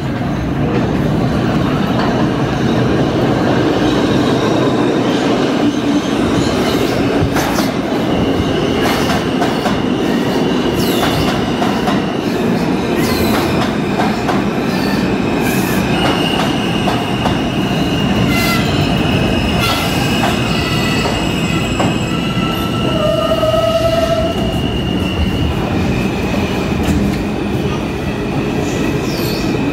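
R160 subway train running through the tunnel: a steady rumble of wheels on rail, with sharp clicks over rail joints. From about nine seconds in, the wheels squeal high and long on curves.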